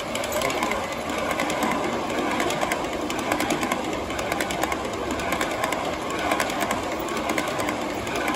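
Garden-scale model freight cars rolling past close by on outdoor track, their wheels giving a steady rumble with a stream of quick clicks over the rail joints.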